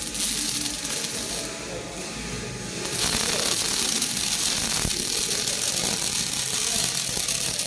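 Robotic MIG/MAG welding arc crackling steadily. It eases off briefly in the first half, then runs louder and even from about three seconds in.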